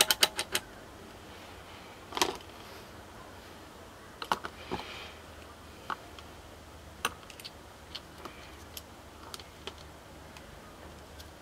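Rotary selector dial of a digital multimeter clicking through several detent positions in quick succession, followed by scattered light clicks and taps as the meter's test probes are handled.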